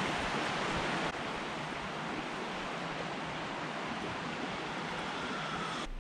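Small creek running: a steady, even rush of flowing water.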